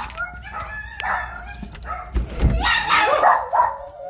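A dog screaming: a run of high-pitched, wavering yelps and howls that grow louder and more frequent in the second half.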